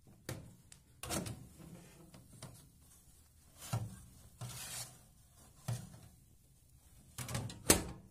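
Metal oven door of a Tuğra wood-burning stove clanking open and shut, with knocks and scrapes as the baking tray inside is handled: a series of separate clunks, the sharpest near the end as the door shuts.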